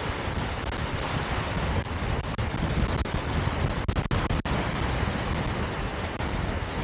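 Wind buffeting the microphone: a steady rush of noise with a heavy, uneven low rumble.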